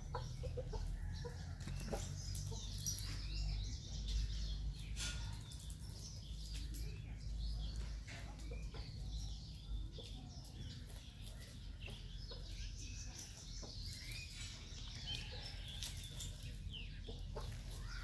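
Backyard chickens clucking now and then as they forage, with scattered short high chirps and a steady low rumble underneath.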